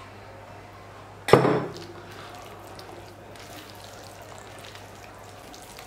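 One sharp knock about a second in, then soft stirring of a silicone spatula through thick flour-and-vegetable batter in a glass bowl.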